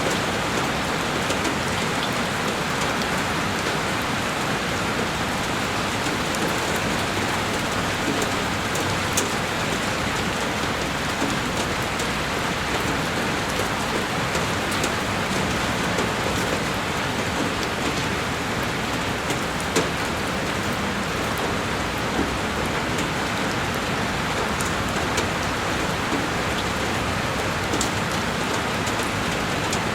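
Heavy rain falling steadily on a window, a dense even hiss with scattered sharper drop ticks.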